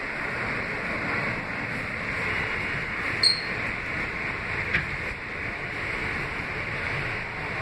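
Steady running noise inside a moving R160B subway car: the wheels on the rails and the car in motion. A brief high ring comes about three seconds in, and a faint click comes about five seconds in.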